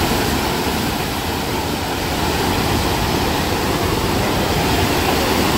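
Steady rushing of pumped water pouring up the slope of a sheet-wave surf simulator ride.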